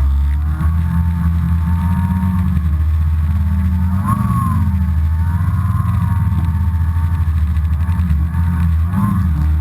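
Snowmobile engine running steadily under way. It revs up and settles back about four seconds in, and again near the end.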